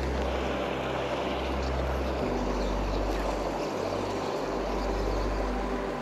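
Low, steady bass notes of background music, changing pitch about two seconds in, over the constant flow of a shallow mountain river.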